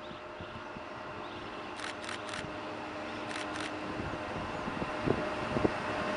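Approaching train behind a class 20E electric and two class 35 diesel locomotives, a steady hum with a held tone that grows steadily louder. A camera shutter fires three times about two seconds in and twice more a second and a half later.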